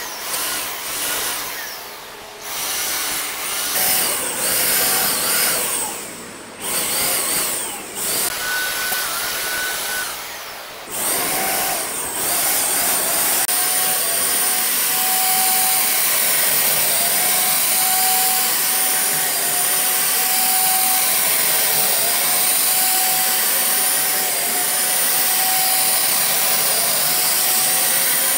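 Handheld electric paint sprayer spraying wood finish. It starts and stops in short bursts at first, then runs steadily with a high, even whine from a little past the middle on.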